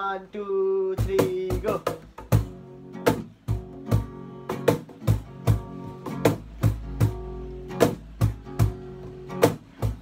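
Acoustic guitar strummed in a steady rhythm, sharp accented strokes a few times a second with the chord ringing between them.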